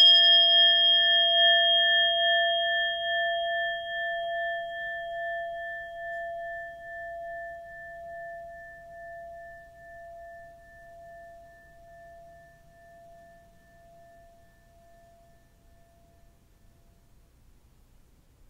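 Singing bowl ringing after a single strike: one clear tone with higher overtones, pulsing slowly in loudness as it fades away over about sixteen seconds. It marks the break between rounds of meditative reading.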